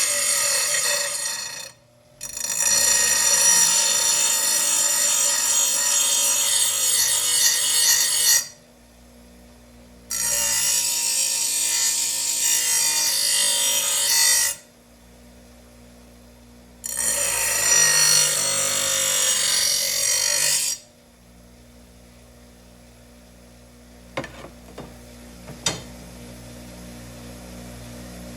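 Power tool grinding the edge of a lawn mower blade in four bursts of a few seconds each, starting and stopping abruptly, then a few sharp clicks near the end.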